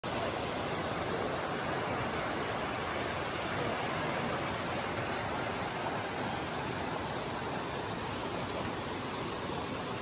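Mountain stream rushing over rocks in small cascades: a steady, even rush of water.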